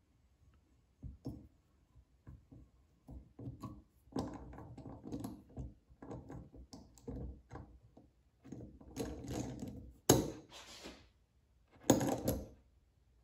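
Wrench turning double-nutted head studs into a Honda CR125 cylinder: irregular clicking and rasping metal-on-metal strokes, with two louder knocks near the end.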